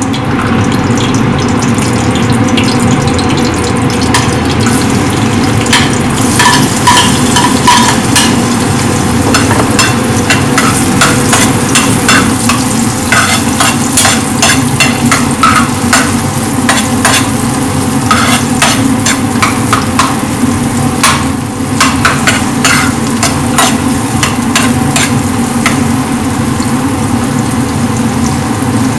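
Butter sizzling in a wide metal pan as chopped onion fries in it, with a spatula repeatedly scraping and tapping against the pan from about six seconds in, over a steady low hum.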